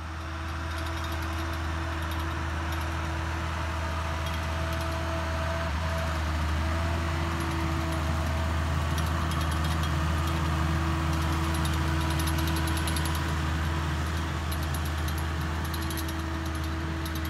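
Massey Ferguson 6480 tractor's six-cylinder diesel engine running steadily as it pulls a laser-guided land leveller: a constant low drone with a light high-pitched rattle, fading in at the start.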